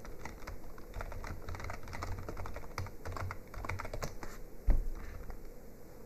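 Typing on a computer keyboard: a quick run of keystroke clicks, then one heavier key press near the end as the search is entered.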